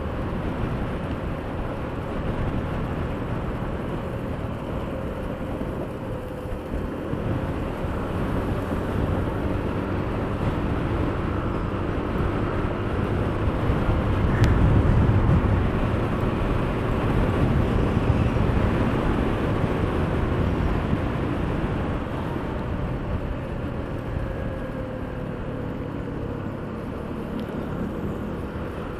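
Honda Beat 110 FI scooter's single-cylinder engine running steadily while riding, heard under steady wind rush on the microphone. The noise swells louder about halfway through, then eases off.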